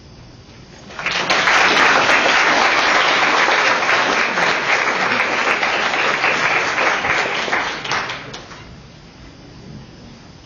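Audience applauding, starting about a second in and dying away after about seven seconds.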